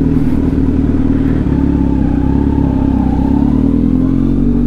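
Kawasaki Z900's inline-four engine running steadily as the motorcycle rolls along, its pitch creeping up slightly near the end.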